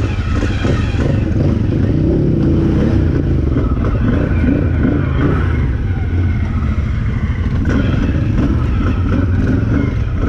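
Can-Am 1000's V-twin engine running steadily at low, even revs.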